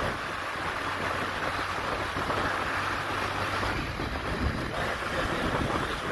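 Steady wind rushing over the microphone while travelling along a road, with a low vehicle rumble underneath and a faint steady hum that fades about halfway through.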